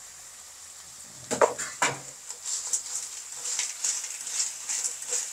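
Snails being stir-fried in a pan. A metal utensil clanks against the pan twice about a second and a half in, then keeps up a run of light scraping and clicking over a faint sizzle.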